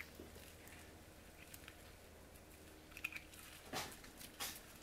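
Quiet room tone with a faint steady low hum, broken by a few brief soft noises about three seconds in and again near the end.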